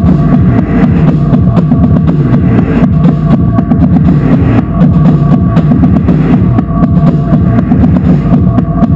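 Loud live noise music: a drum kit pounded fast and hard, heavy on the bass drum, inside a dense distorted wall of sound with steady droning tones running through it.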